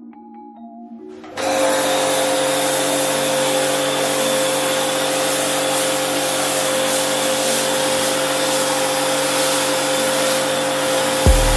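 Pressure washer running, spraying snow foam: a steady motor whine under the hiss of the spray, cutting in sharply about a second in over faint music. A short low boom near the end.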